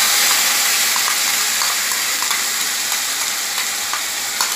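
Onion paste sizzling hard as it hits hot mustard oil in an aluminium kadai, a dense hiss that is loudest as it first goes in and eases slightly. A few light clicks of a spoon scraping the paste out of a bowl.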